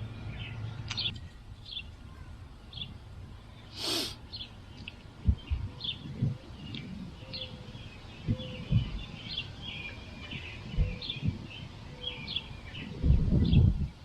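Birds chirping repeatedly with short high calls. A brief hiss comes about four seconds in, and dull low thumps and knocks come now and then from about five seconds on, bunching together near the end.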